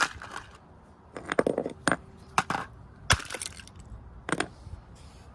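A Sylvania alarm clock being struck repeatedly, its glass front cracking and breaking up, with about half a dozen sharp blows and high glassy crackles; the loudest blow comes about three seconds in.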